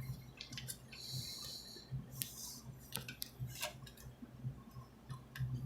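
Small clicks and short scraping rasps of copper electrical wires being handled and a plastic wire nut being twisted onto them.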